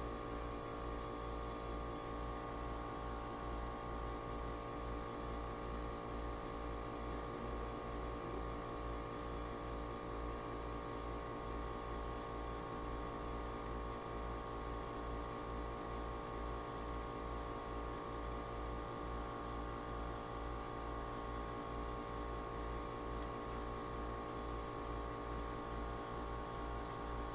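Steady machinery hum made of several fixed tones, with a low, rapid pulsing throb underneath and no change throughout.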